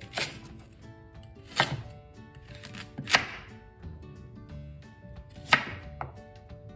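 Kitchen knife chopping on a cutting board: four separate sharp chops, about a second and a half apart.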